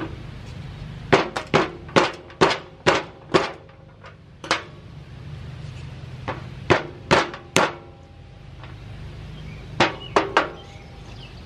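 Sharp metal knocks from the loose cylinder head cover of an old air compressor as it is worked: about six in quick succession early on, then single and clustered knocks, some with a short ring.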